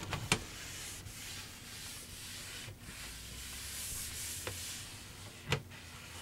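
Damp cloth rag rubbing across a sanded oak tabletop, a soft swelling hiss of wiping strokes as the last sanding dust is cleaned off. Two sharp taps, one right at the start and a louder one about five and a half seconds in.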